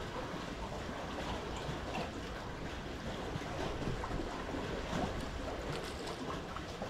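Steady rushing outdoor noise, heaviest in the low end, with a few faint high ticks.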